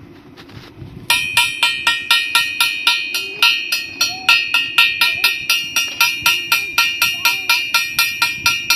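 A metal object struck over and over in a steady fast rhythm, about four ringing strikes a second, starting about a second in.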